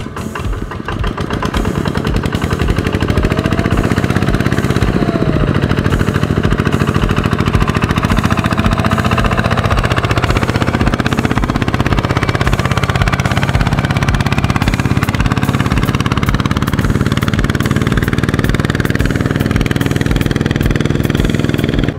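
Kubota ZT155 two-wheel tractor's single-cylinder diesel engine running steadily while hauling a trailer loaded with rice sacks, with an even, rapid firing rhythm. It gets louder about a second in.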